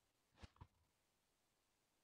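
Near silence, with two faint, brief clicks close together about half a second in: handling noise from the microphone's cardboard box and its plastic-wrapped contents being taken out.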